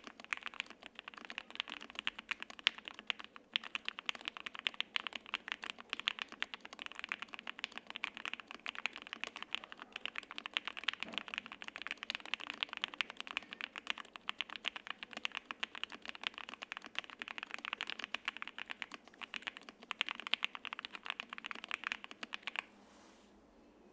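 Fast, continuous typing on a custom mechanical keyboard (Jelly Epoch SE, gasket-mounted, with lubed Lavender linear switches on a polycarbonate plate and GMK double-shot ABS keycaps). The typing stops about a second before the end.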